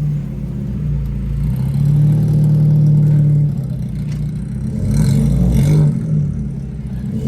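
Peugeot 207's 1.6 four-cylinder engine pulling under acceleration. The engine note swells and holds, eases off about three and a half seconds in, then builds again.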